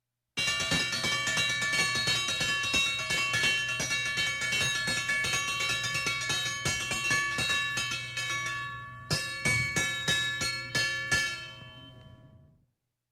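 A short musical sound effect of rapid percussion strikes over bell-like ringing tones. It starts suddenly, runs as a dense flurry, thins out, hits a few louder final strikes and rings away.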